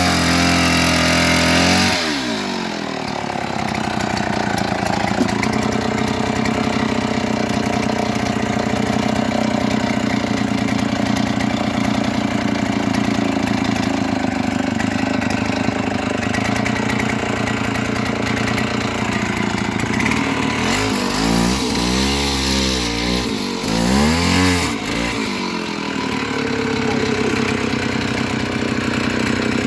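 Engine running steadily. Its speed drops about two seconds in, then surges up and down several times between about 21 and 25 seconds in before settling again.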